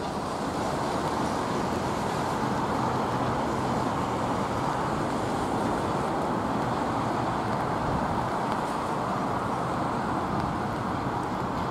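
Steady, even roar of an airliner's jet engines on final approach, a Boeing 787-8, mixed with gusty storm wind.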